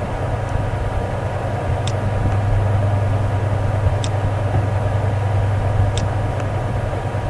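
Steady low hum with a background hiss, and a few faint clicks about two seconds apart.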